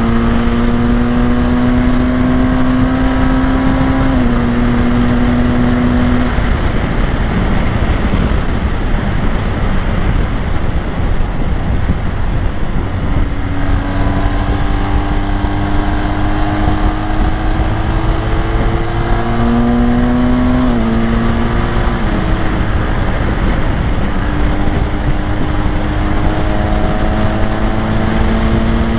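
BMW R 1250 GS Adventure's 1254 cc boxer-twin engine pulling along at highway speed under heavy wind rush. Its note rises slowly between sudden drops in pitch at gear changes, and for several seconds in the middle it is lost under the wind.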